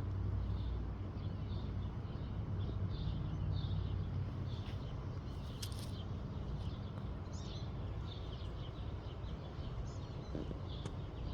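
Small birds chirping, short high calls scattered through, over a steady low outdoor rumble.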